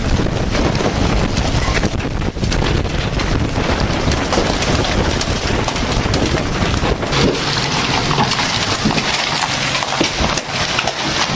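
Large hailstones and heavy rain pelting down in a dense, steady clatter of impacts, with wind.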